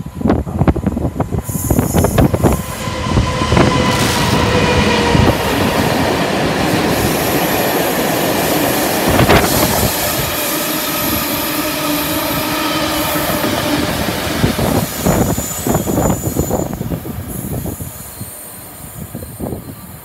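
DB Cargo Class 66 diesel locomotive, a two-stroke V12, passing through at speed with a long train of ballast hopper wagons. The engine and wheels run loud and steady, with the wheels squealing on the curve and clattering over the rail joints. The noise fades near the end, with wind buffeting the microphone at the start and end.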